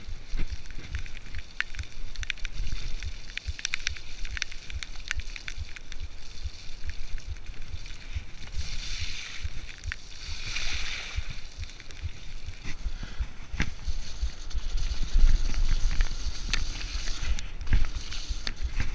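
Mountain bike descending a dirt forest trail at speed: wind rumbling on the microphone, the tyres running over dirt, and a constant run of sharp clicks and rattles from the chain and frame over bumps and roots. A short hiss comes about halfway through.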